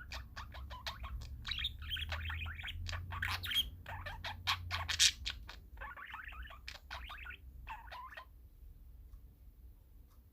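Parakeets chirping in rapid, overlapping short calls and warbles, which die away about eight seconds in. A low hum runs underneath.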